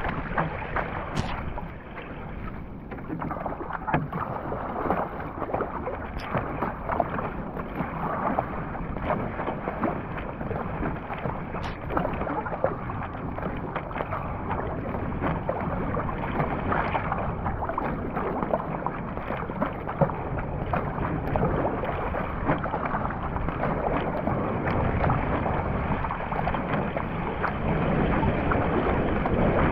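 Surfski being paddled hard on open ocean: paddle blades dipping and splashing with each stroke and water rushing along the hull, a steady wash that slowly grows louder.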